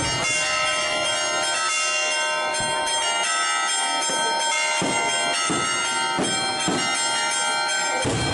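Church bells pealing continuously, many bell tones ringing together, with several sharp bangs cutting through, most of them in the second half.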